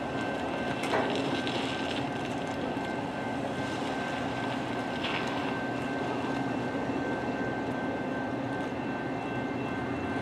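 Metra bilevel commuter train standing at the platform with its power running: a steady mechanical drone with a thin high whine over it.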